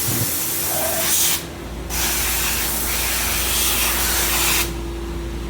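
Loud hiss in two long bursts, with a short break about a second and a half in, over a steady machine hum.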